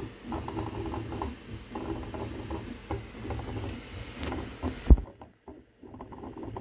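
Homemade 3D printer built from scrap parts running a print: its salvaged X- and Y-axis stepper motors whine in shifting tones as the head and bed move, along with the Y-axis noise the builder puts down to slack in one loosely held bed shaft. A single sharp knock comes about five seconds in, after which the sound drops out for under a second.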